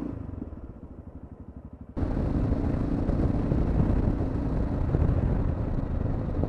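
Motorcycle riding heard from an onboard camera: the engine runs with an even low pulse. About two seconds in the sound jumps suddenly to a louder, steady mix of engine and wind rush at road speed.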